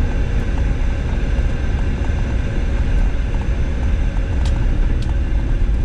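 Volkswagen Transporter T4 camper van driving a rough mountain track: a continuous low rumble of engine and tyres on the rough surface, with a few sharp knocks or rattles near the end.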